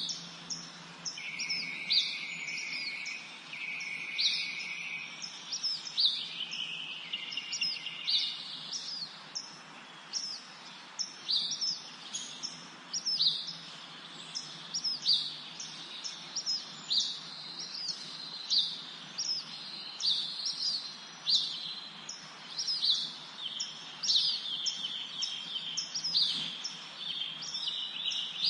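Several songbirds singing and chirping in a spring forest: short high notes that drop in pitch, repeated about once a second, with lower trilled phrases during the first few seconds.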